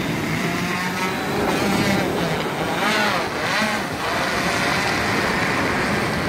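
SwellPro SplashDrone 3+ quadcopter flying overhead, its propellers whining and rising and falling in pitch as it climbs with the bait line. Wind buffets the microphone underneath.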